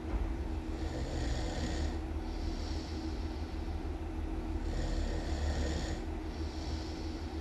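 A person snoring really loud in slow, even breaths. Each cycle is about four seconds long and holds two hissing breaths in a row, over a constant low hum.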